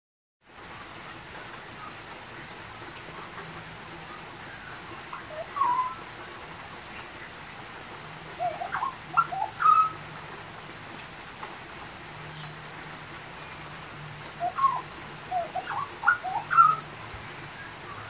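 Young butcherbird giving short rising call notes in two spells, one about five to ten seconds in and another about fifteen seconds in, over a steady hiss of rain.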